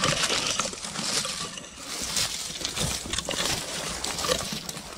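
Dry undergrowth and dead reeds rustling and crackling as someone pushes through on foot, with many small sharp cracks of twigs.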